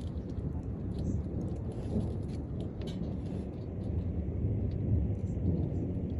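Distant thunder rolling in a low, continuous rumble that swells a little about five seconds in, with faint scattered ticks above it.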